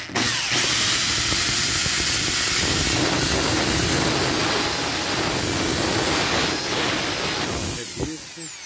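Electric drill spinning up and drilling out a rivet in a car's sheet-metal wheel-arch lip, with a high steady whine over grinding noise. The drill winds down and the whine falls away near the end.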